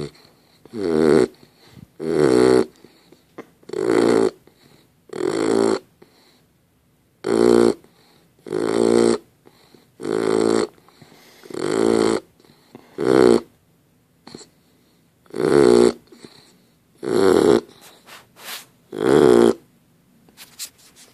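Sleeping puppy snoring: about a dozen snores, one every second and a half or so, with two short pauses.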